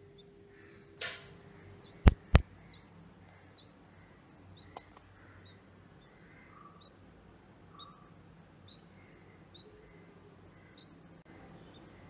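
Two sharp, loud clicks about a quarter second apart, two seconds in, after a short hiss about a second in, over a faint background with soft, high blips.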